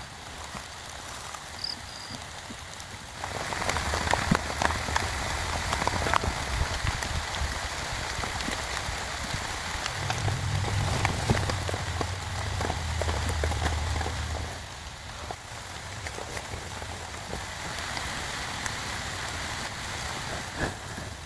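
Heavy rain falling, a steady hiss dotted with the ticks of single drops. About three seconds in it grows louder, with a low rumble underneath, and it eases off again about fifteen seconds in.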